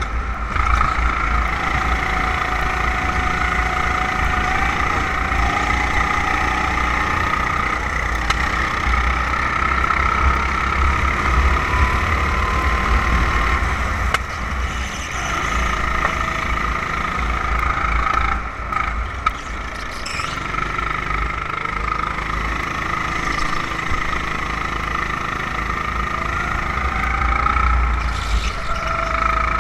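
Onboard sound of a 270cc rental kart's single-cylinder four-stroke engine running hard around the track, its pitch rising and falling as it accelerates and lifts off for corners, with a heavy low rumble of wind and vibration on the kart-mounted camera.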